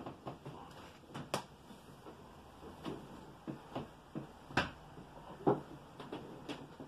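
Irregular clicks, knocks and rustles from a sofa bed and its bedding as a man shifts from sitting to lying down, the loudest a little past halfway.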